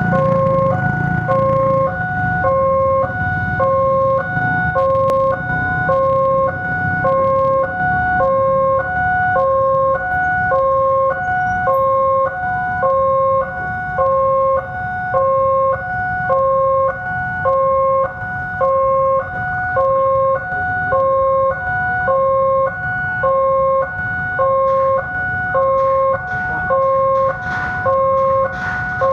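Railway level-crossing warning alarm sounding a steady electronic two-tone signal, alternating between a higher and a lower tone about once every one and a half seconds: a train is approaching and the barriers are down. The low rumble of waiting traffic runs underneath.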